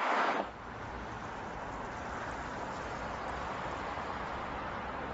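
Volkswagen ID.4 GTX electric SUV passing close by, a swelling rush of tyre and wind noise with no engine note, cut off abruptly less than half a second in. Then a steady rush of road noise with a low rumble.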